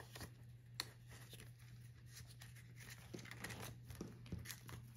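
Faint rustling and crinkling of paper banknotes being folded and slid into a clear plastic cash envelope in a ring binder, with a few light clicks and a sharp tick about a second in.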